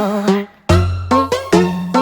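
Upbeat electronic background music with a bouncy synth melody; a bass line comes in under it about two-thirds of a second in, after a short gap.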